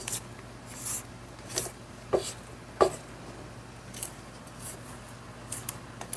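Rubber spatula scraping frosting off the sides of a stainless steel stand-mixer bowl: a run of short scrapes, roughly one every half second to second, the sharpest near the middle.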